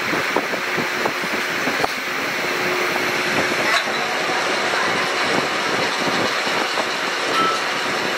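Metal lathe running, its four-jaw chuck spinning with a threaded tractor top-link screw held by hand, in a steady machine-shop din with a few light clicks.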